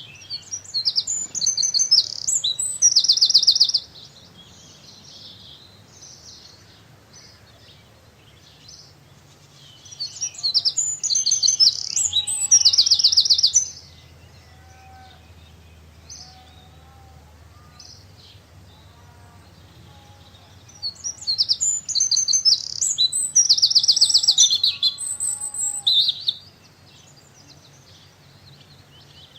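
A songbird singing three loud, high, rapid song phrases about ten seconds apart, each a few seconds long and ending in a fast trill. Faint, softer chirps come in between.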